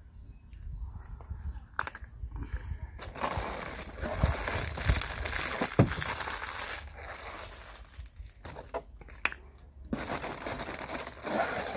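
Crinkling and rustling noise from close handling, in two stretches of a few seconds each, over a steady low rumble, with a few sharp clicks.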